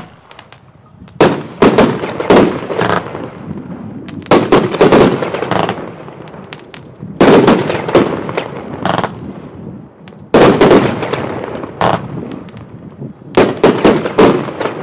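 PGE Golden Willow Fan firework battery (fan cake) firing: one shot at the start, then five volleys of several sharp reports in quick succession, about every three seconds, each volley dying away before the next.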